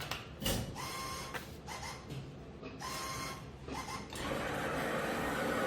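Claw machine's gantry motors whirring in four short runs as the claw is moved, with a click about half a second in and a steadier mechanical hum after about four seconds.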